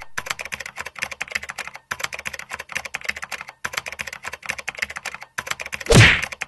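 Fast typing on a computer keyboard: rapid key clicks in four runs with short pauses between them. Near the end comes a single loud, heavy thud.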